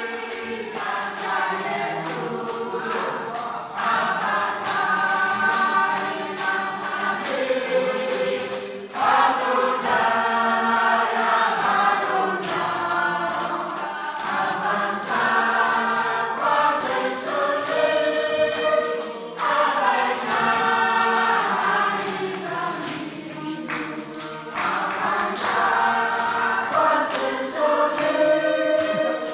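A women's choir singing unaccompanied in parts, phrase after phrase, with hand claps.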